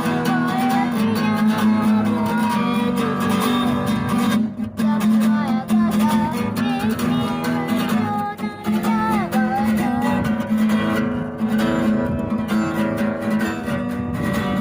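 Acoustic guitar strummed steadily, with a wavering melody line over the chords.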